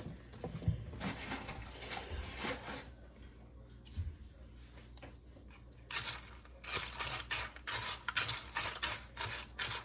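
Spoon clinking and scraping in a bowl of popcorn kernels as oil is spooned in, with a quieter stretch in the middle and a quick run of scrapes in the second half.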